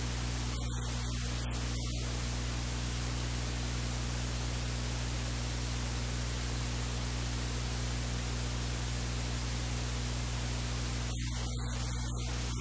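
Steady loud hiss with a low electrical hum underneath, the audio track's noise. The hiss thins briefly about a second in and again near the end.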